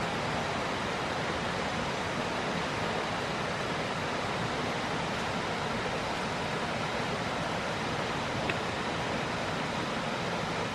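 Steady rushing noise, even across high and low pitches and unchanging throughout, with one faint click about eight and a half seconds in.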